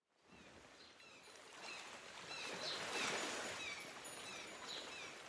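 Faint rushing ambience that swells to a peak about halfway through and then fades, with several short, falling bird calls over it.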